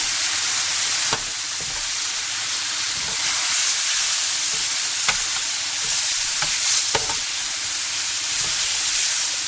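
Rice sizzling in hot oil and tomato sofrito in a paella pan, toasting before the broth is added, as a metal spoon stirs it. The hiss is steady, with a few sharp clicks of the spoon against the pan.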